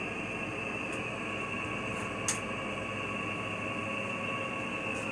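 Steady background hiss with a faint high whine held throughout, and one short click a little over two seconds in.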